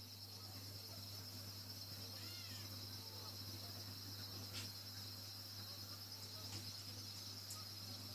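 Faint steady low hum of aquarium equipment, with a high continuous trilling whine above it and a few faint short chirps about two seconds in.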